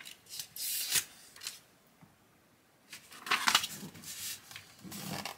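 Handling noises from a handheld plastic garment steamer being turned over and worked in the hands: short plastic clicks and rubbing, with a quiet pause of about a second in the middle.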